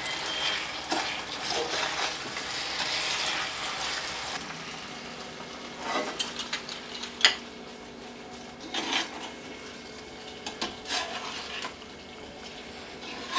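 Chicken pieces sizzling in thick chilli gravy in a metal frying pan on high heat while a metal spatula stirs them, scraping and clinking against the pan. The sizzle drops away about four seconds in, leaving separate scrapes and taps of the spatula on the pan.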